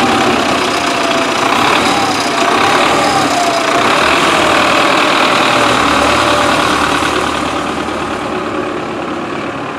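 Belarus MTZ-952 tractor's diesel engine running steadily as it pulls a four-row SN-4B potato planter past, growing fainter over the last few seconds as it moves away.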